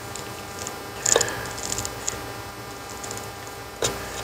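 Small screwdriver twisted in the seam of a Kelsey-Hayes ABS module, prying the cover off its gasket seal. There are sharp clicks and cracks: a cluster about a second in, and a single snap near the end.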